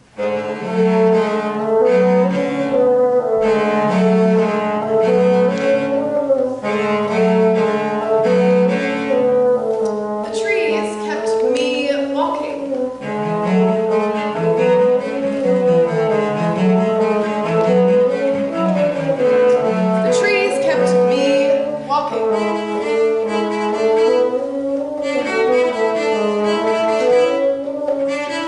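Cello and bassoon playing a duet in a repeating figure of sustained notes, with a few rising slides in pitch about ten and twenty seconds in.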